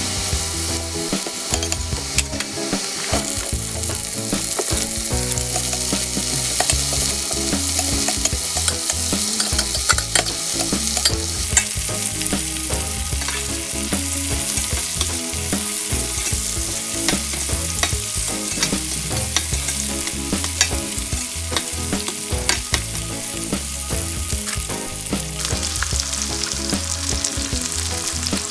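Onion, carrot and bell pepper sizzling in oil in a stainless steel pan, stirred with a spatula, with a steady hiss and many small crackles throughout.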